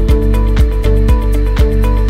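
Background music with a steady beat, about two strong beats a second, over held bass notes.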